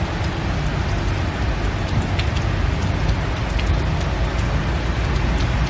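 Heavy rain falling steadily: a continuous hiss with a low rumble underneath.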